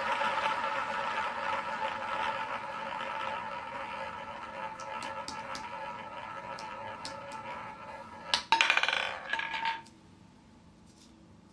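Two roulette balls rolling around the wooden ball track of a roulette wheel, a steady whirring roll that slowly fades, with scattered clicks from about halfway as they hit the diamond deflectors. About eight and a half seconds in they drop into the spinning wheel's pockets with a loud clattering rattle that stops about a second later as the balls settle.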